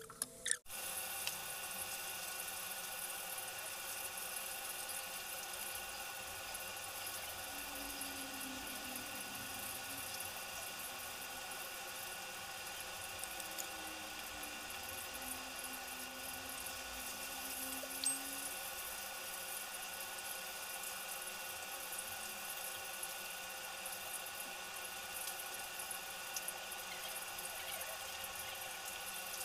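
Steady hiss with a constant hum of several steady tones, like a running machine.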